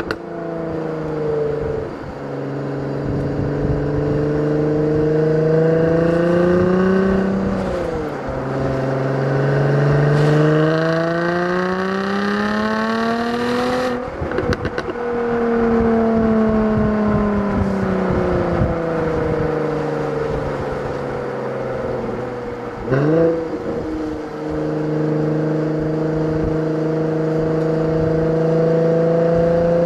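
Jaguar F-Type V6 S's supercharged 3.0-litre V6 accelerating through the gears. The engine note climbs steadily and drops at upshifts about 8 and 14 seconds in, then winds down slowly. A quick rev blip comes around 23 seconds in, and the note climbs again.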